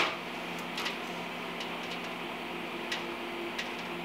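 A steady low hum with a handful of faint, irregular light ticks.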